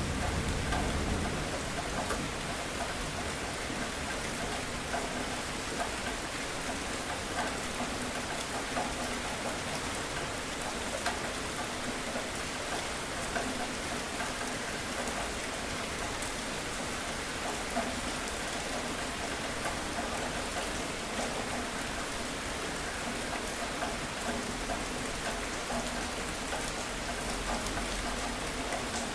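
Steady rain falling on a surface, with scattered drop ticks through it. A low thunder rumble dies away in the first second or two.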